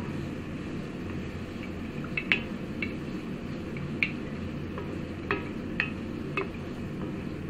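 Wooden spatula stirring a thick onion and spice paste in a cast iron wok, knocking and scraping against the iron about six times at uneven intervals, each knock short with a slight ring. A steady low hum runs underneath.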